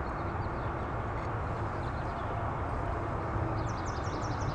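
Outdoor ambience: a steady low hum and hiss, with a quick run of small high bird chirps near the end.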